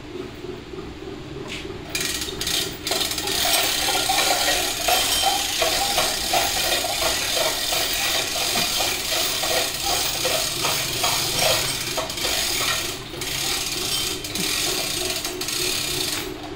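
Mechanic's hand tools working on metal engine parts: rapid ratchet-like clicking and rattling, getting louder about two seconds in.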